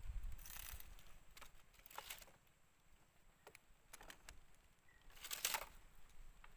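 Quiet handling of a small fishing reel and line: a few soft rustling brushes, the loudest about five seconds in, with scattered small clicks.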